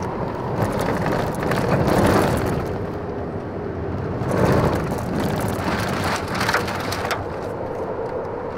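Heavy rain and wind beating on a car driving down a rough gravel road, swelling in gusts about two seconds in and again about four and a half seconds in.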